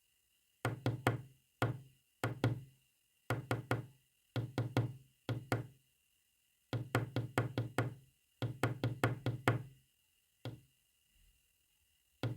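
Quick knocks in short groups, one to several taps in a row with pauses between the groups, tapping out what is meant as Morse code.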